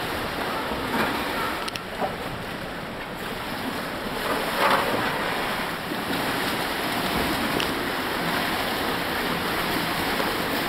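Pool water splashing and churning as a whitewater playboat kayak is flipped end over end, a steady rush of water with a few sharper splashes, the largest about five seconds in.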